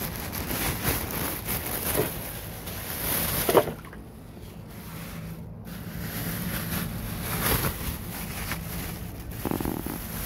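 Rumbling handling noise on a phone microphone, with rustling plastic grocery bags and scattered clicks, and a sharp knock about three and a half seconds in.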